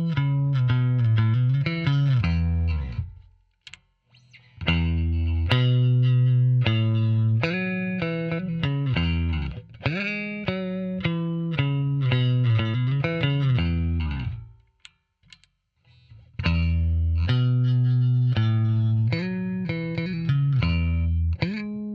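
Squier Bass VI, a six-string baritone electric bass, played through an amp modeller with a bass cabinet: phrases of picked notes and riffs that break off twice for a second or two.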